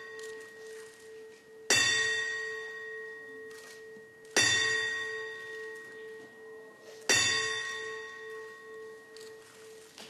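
Boxing-ring bell struck slowly for the ten-count gong, the salute that marks a fighter's retirement: three single strikes about 2.7 seconds apart, each ringing on with a steady tone and fading before the next.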